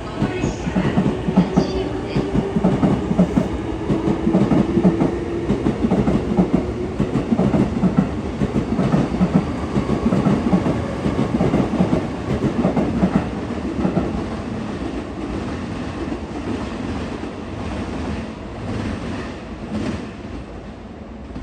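JR East 255 series electric multiple unit running along the track, its wheels clattering rapidly over rail joints. The sound is loudest for the first two-thirds and then fades away.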